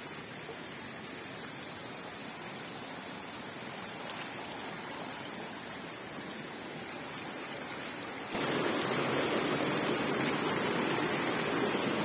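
Rain-fed hill stream rushing over rocks, a steady even rush of water that gets suddenly louder about eight seconds in, where white water cascades between boulders.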